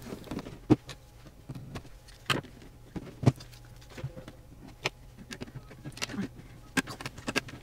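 Irregular clicks, taps and crinkles of a flimsy clear plastic figure box and its plastic packaging being handled, with a few sharper clicks.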